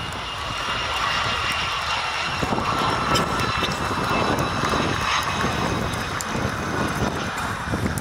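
Blue Angels F/A-18 Super Hornet's twin GE F414 jet engines running steadily as the jet rolls along the runway, a dense, continuous jet noise.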